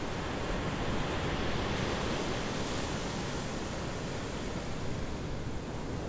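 Ocean surf washing on the beach, a steady rush with wind mixed in.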